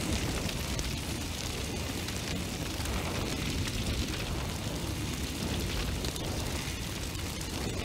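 Fire burning: a steady rushing noise of flame, with no let-up and no separate bangs.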